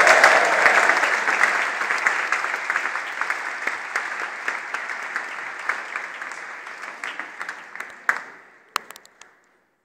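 A large audience applauding, loudest at first and dying away over about eight seconds, with a few last scattered claps near the end.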